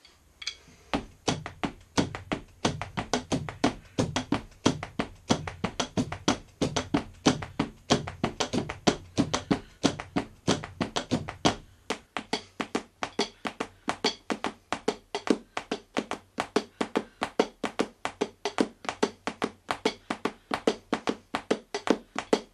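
Vater 5B hickory drumsticks playing a steady pattern on rubber drum practice pads: quick, even taps, about five strokes a second. For roughly the first half, deeper thuds sit under the taps, then drop out.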